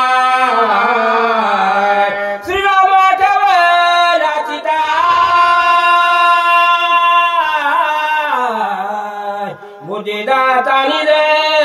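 A single voice singing a line of devotional verse, drawing the notes out long and gliding ornamentally between pitches. It dips briefly near the end before going on.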